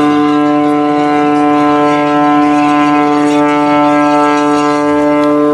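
Ship's horn sounding one long, steady blast.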